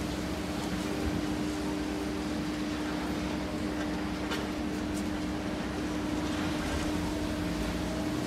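Liebherr 954C high-reach demolition excavator running steadily, its diesel engine and hydraulics giving an even hum and rumble. A few faint sharp clicks come through about halfway in.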